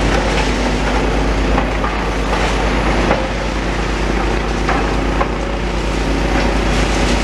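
Demolition excavator's diesel engine running steadily while it pulls down masonry, with several knocks and crunches of wall coming down.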